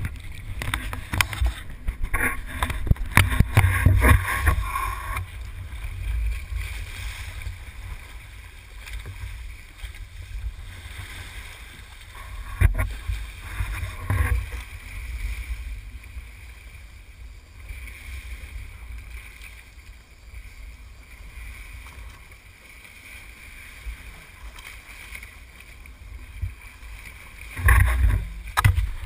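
Water rushing and splashing along the hull of a sportfishing boat under way in a choppy sea, over a steady low rumble. The splashing surges louder a couple of seconds in, again about halfway through, and near the end.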